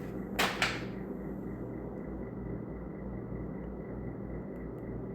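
A steady low hum of room noise with a faint high whine, and two quick clicks close together about half a second in.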